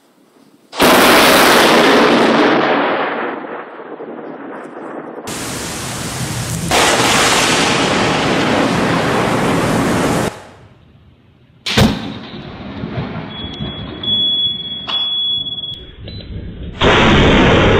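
Close lightning strikes with thunder, heard as several separate clips. A sudden loud crash comes about a second in and dies away over two seconds. A long loud crash and rumble runs from about five to ten seconds, then a single sharp crack comes near twelve seconds. Another sudden loud burst comes near the end.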